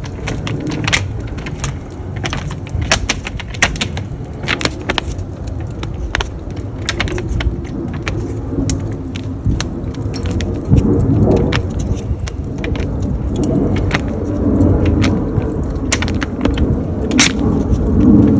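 Charcoal and wood fire crackling, with frequent sharp, irregular pops over a low rumble that gets louder about halfway through.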